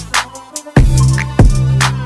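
Electronic music with a heavy beat: sharp drum hits, each followed by a long, deep booming bass note, with a short break about half a second in before the beat comes back.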